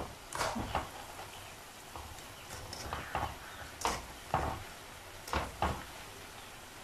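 Frozen French fries frying in hot oil in a pan, a faint steady sizzle broken by several short scrapes and knocks of a stirring utensil against the pan as the fries are pushed down into the oil.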